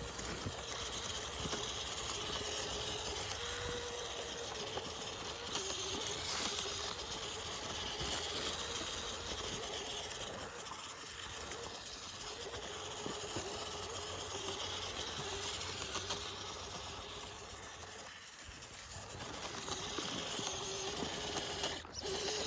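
Electric motor and gear drivetrain of an FMS RC crawler truck running with a steady thin whine over a hiss, with small clicks, easing off briefly near the end.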